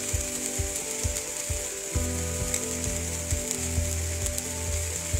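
Egg omelette frying in ghee in a metal pan, giving a steady sizzle with a low hum underneath.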